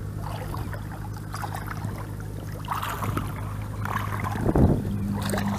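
Shallow water splashing and sloshing as a person wades through a flooded field, with the loudest splash about four and a half seconds in.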